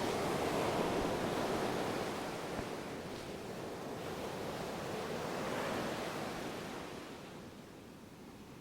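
Ocean surf: waves washing in, one swell near the start and another a little past the middle, then easing to a softer hiss near the end.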